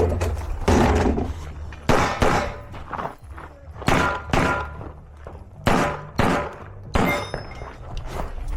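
Gunshots from a competition firearm fired in a string of about nine shots, most of them in quick pairs about half a second apart, over a steady low rumble.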